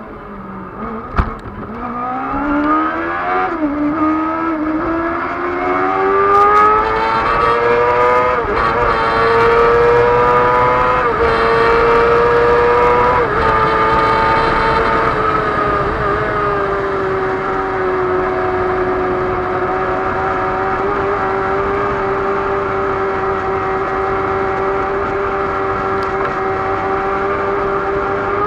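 A racing sidecar outfit's engine heard onboard, accelerating hard with its pitch climbing through several upshifts, each marked by a short drop in pitch. About halfway through it settles to a steady high-revving note at speed. A single brief knock sounds about a second in.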